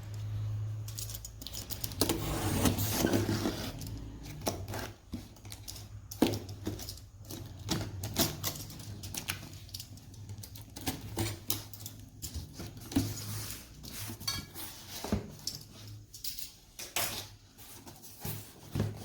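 Unboxing a vacuum cleaner: cardboard and plastic packaging and parts being handled, with irregular clicks and knocks and a stretch of rustling about two to three seconds in. A steady low hum runs underneath.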